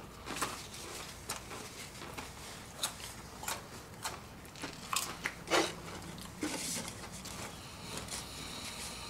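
Several people biting into and chewing Pringles Wavy potato chips: scattered, irregular crisp crunches, a few louder ones in the middle.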